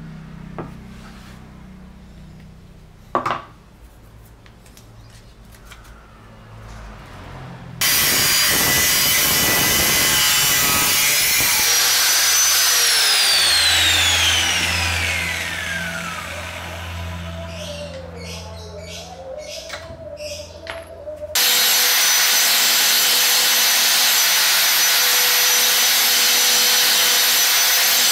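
Angle grinder cutting through a steel saw-blade knife blank; after it stops, its whine falls steadily as the disc spins down. A few seconds later it starts again and runs steadily, grinding the blank's edge with a flap disc. Before the cutting there are several quieter seconds with a few light clicks.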